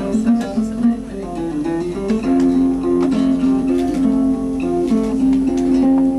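Acoustic guitar music, with strummed and picked chords moving through a steady melody.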